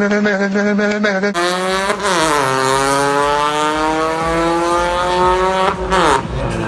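Street-race launch: a car engine accelerating hard, its pitch dipping then climbing steadily for about three seconds before dropping off near the end. This follows a steady drone in the first second or so.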